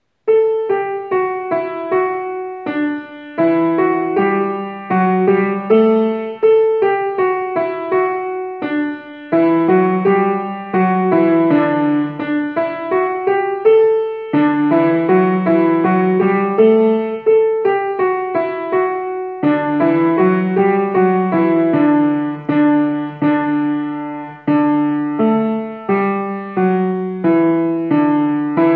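Grand piano playing a solo piece, a melody over a lower accompaniment, starting just after a moment of silence.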